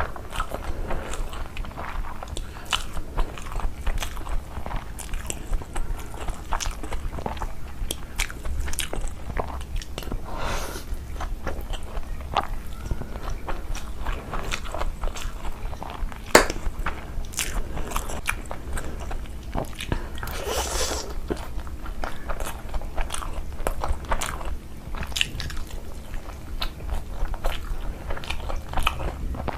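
Close-miked eating: a person chewing and biting into food, with a continual run of small crunches and mouth clicks.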